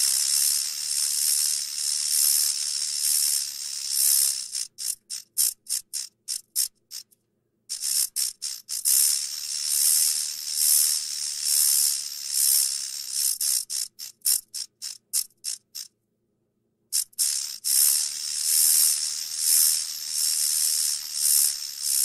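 Rattlesnake's tail rattle buzzing, a dry high buzz that pulses in loudness. Twice it slows into separate clicks and stops for a moment, then starts up again.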